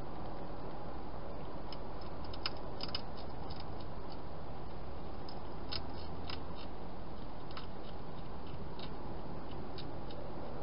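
Wild hedgehog chewing crunchy food: irregular crisp clicks in short clusters, over a steady hiss.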